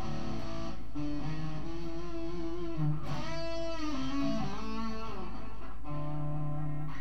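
Stratocaster-style electric guitar played in a blues style: single-note lines with bent notes in the middle, then a low note held near the end. A steady low hum runs underneath.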